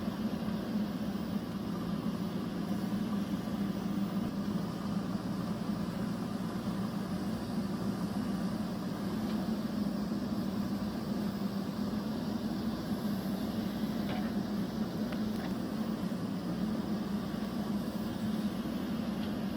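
JCB backhoe loader's diesel engine running at a steady speed, a constant hum with no revving.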